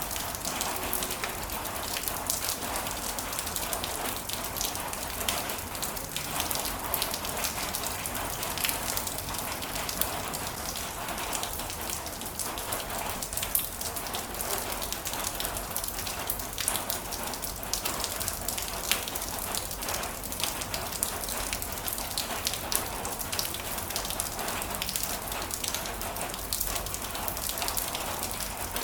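Heavy rain falling steadily, with many sharp individual drop impacts ticking over a dense even hiss of rain.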